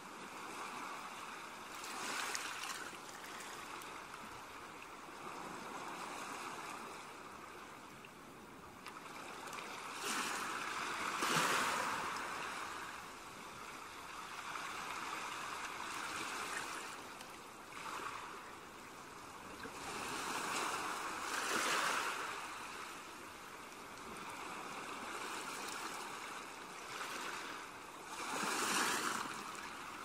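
Sea waves washing onto a sandy beach: a steady hiss of surf that swells into louder breaks every few seconds, the strongest about a third of the way in.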